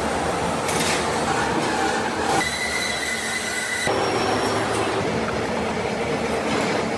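Gear hobbing machine's hob cutter running through a large steel gear, a steady grinding machine noise with a high-pitched whine that sets in about two and a half seconds in and drops out a second and a half later, where the sound changes abruptly.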